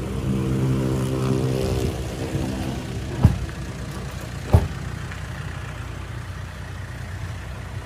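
A motor vehicle engine running steadily for about the first two seconds, then fading away. Two sharp knocks come about three and four and a half seconds in.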